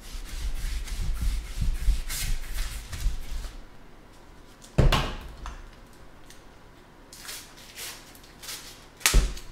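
Off-camera handling noises: rubbing and rustling for the first few seconds, then two sharp knocks, about five and nine seconds in, with lighter taps between.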